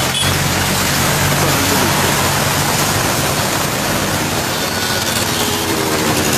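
Steady rushing noise of running floodwater, with a vehicle engine humming low and steady underneath.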